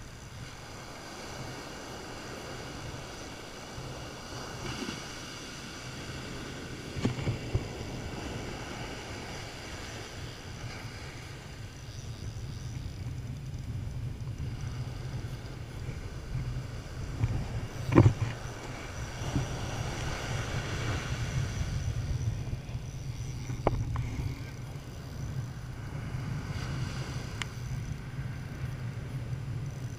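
Surf washing up the beach in swells that rise and fall every few seconds, with a steady wind rumble on the microphone. A few sharp knocks break through; the loudest comes just past halfway.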